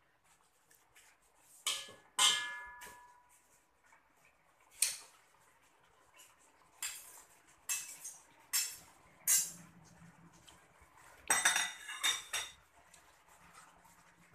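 Metal spatula knocking and scraping against a stainless-steel wok while stirring cassava leaves: a run of irregular clanks, one ringing out briefly about two seconds in, and a quick cluster near the end.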